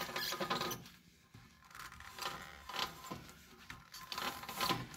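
The failed rear wheel bearing of a 1984 Mercedes 300SD (W126), crunching and grinding in uneven surges as the bare rear hub is turned by hand. This is the sound of a worn-out wheel bearing whose races are being chewed up.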